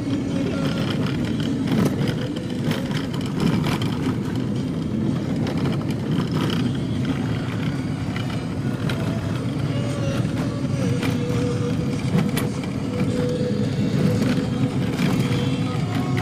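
Off-road vehicle driving over a rough track: a steady rumble of engine and tyres, with frequent knocks and rattles from the bumps.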